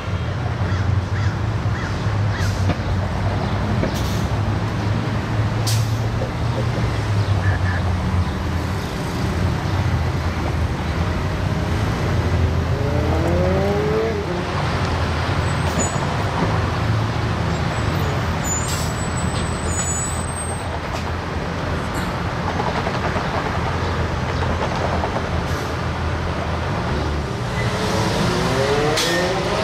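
Steady vehicle and traffic noise: a constant low drone with passing-vehicle rumble. Pairs of rising whines come about halfway through and again near the end, as from motors speeding up.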